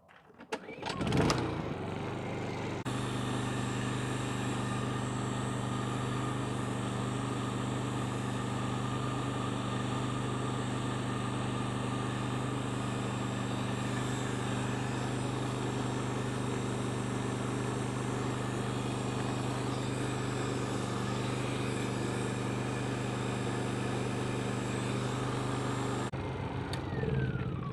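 Heat gun running to shrink heat-shrink tubing over a freshly crimped battery-cable lug: it starts up about a second in, gets louder a couple of seconds later, then runs steadily with a low hum and a rush of air, and is switched off shortly before the end.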